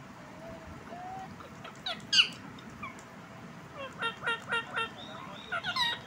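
Indian ringneck parakeet calling: soft gliding whistles, then one loud harsh squawk about two seconds in, followed by a quick run of four short chirps and another brief burst of calls near the end.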